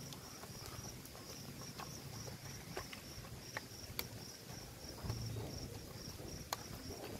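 Crickets chirping in a steady, evenly pulsing high trill, a few pulses a second, with scattered faint clicks over it.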